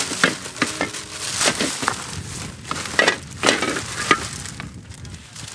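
Clear plastic rubbish bag rustling and crinkling as it is handled, with irregular knocks and clatters of plastic litter being picked up and dropped into it.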